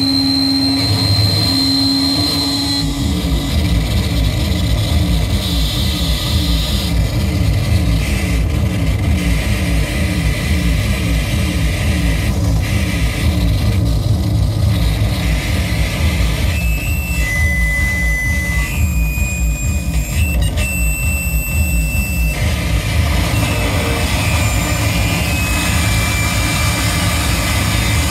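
Harsh noise music played live on electronics: a loud, dense wall of distorted noise. A fast pulsing low rumble sets in a few seconds in. Steady high electronic tones come and go, one at the start and several changing pitch in steps around the middle.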